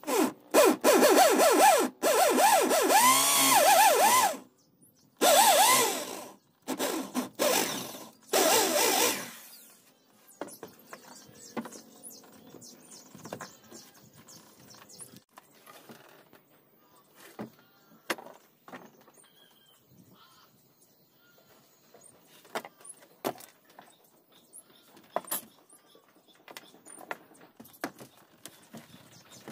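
Electric hand drill boring into a plywood door panel to recess it for a sliding-door wheel, running in several bursts over the first nine seconds, its motor pitch sagging and recovering as the bit bites. After that come scattered light knocks and clicks of tools being handled on the bench.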